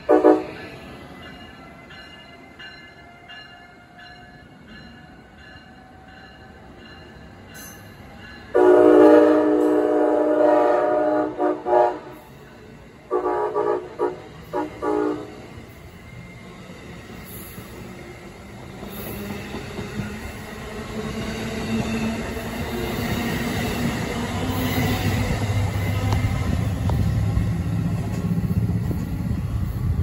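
Amtrak ACS-64 electric locomotive's multi-chime air horn: a brief blast at the start, then a long blast about nine seconds in followed by short toots in a shave-and-a-haircut rhythm. After that the passenger cars roll by with a rising rumble of wheels on rail.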